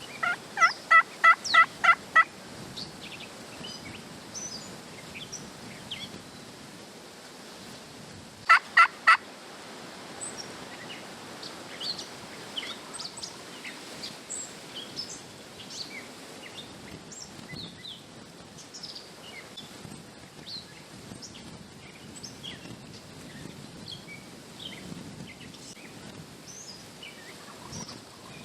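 Turkey yelping: a quick run of about seven evenly spaced yelps at the start, then three more around eight seconds later. Small birds chirp faintly throughout.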